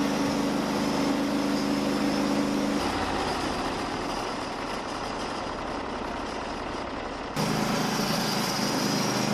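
A machine engine running steadily with a low, even hum. The sound changes abruptly about three seconds in, and the hum returns near the end.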